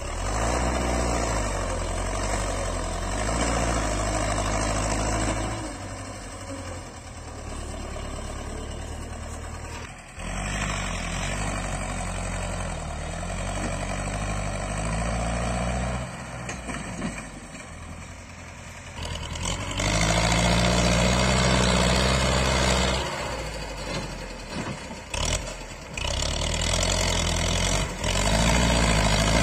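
Belarus tractor's diesel engine labouring under heavy load as it pulls a loaded sand trailer, pouring out black smoke. Its sound swells and falls, with several sudden drops and a louder stretch about two-thirds of the way in.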